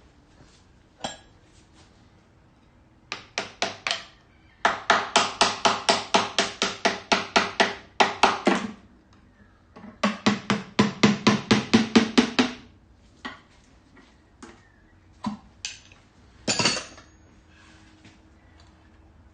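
Rapid hammer blows on the sump of a Fiat 500 engine, about five a second in two long runs with a few single knocks before and after, the pan ringing under the strikes: tapping to free a sump that stays stuck after its bolts are out.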